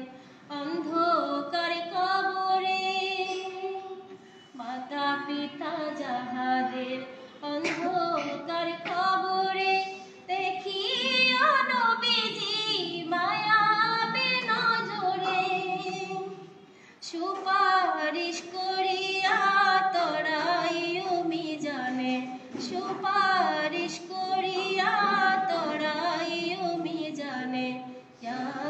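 A woman singing an Islamic devotional ghazal unaccompanied, in long held notes that bend and waver, with short breaths between phrases.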